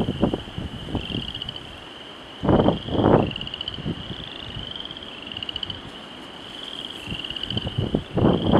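A steady night chorus of high, pulsed trilling calls, one trill after another. Gusts of wind buffet the microphone twice, about two and a half and three seconds in, and again near the end.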